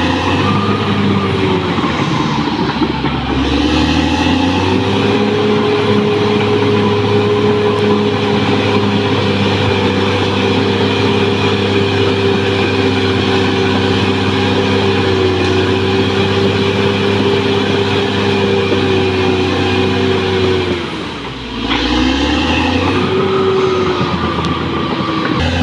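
Caterpillar D6R XL bulldozer's diesel engine running steadily under load, its pitch dipping and climbing back at the start and again near the end.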